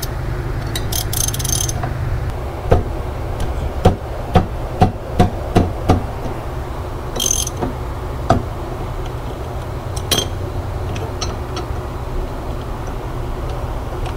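A half-inch ratchet and lock nut wrench working the reverse-threaded rear axle lock nut on a Honda 400EX: a run of sharp metal clicks and clanks, several about half a second apart in the middle, with two short rattling bursts.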